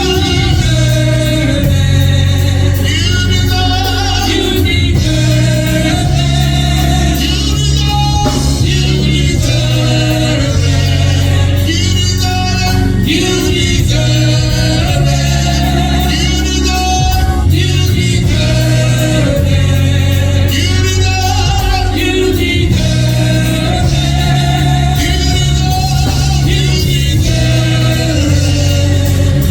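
Gospel music: voices singing over a band, with a strong, steady bass line.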